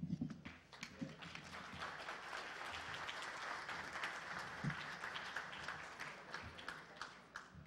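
Audience applauding, a dense patter of many hands clapping that fills in over the first second or two and dies away near the end.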